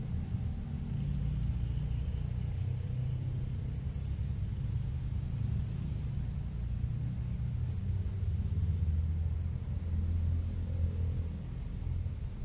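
A low, steady rumble that swells and eases a little over the seconds.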